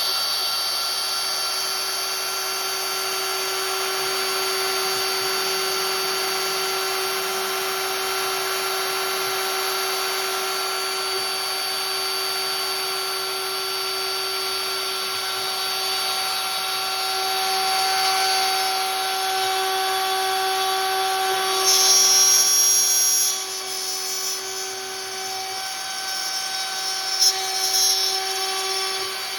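CNC router spindle running with a steady whine while milling wood. The cutting noise grows louder and brighter for a second or two about three quarters of the way through.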